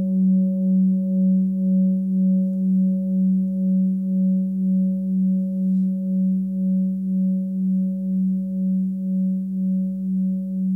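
Large forged singing bowl, the F-sharp bowl of a seven-note set, ringing on after being sounded. It holds one low note with fainter higher overtones, wavering evenly at about two pulses a second as it slowly fades.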